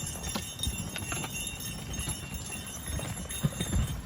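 Belgian draft horses walking in harness: irregular hoof steps with light clinks of harness gear, and a couple of louder thumps near the end.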